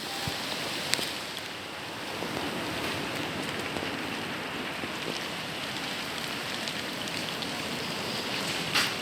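Steady rain falling: an even hiss with a few faint ticks.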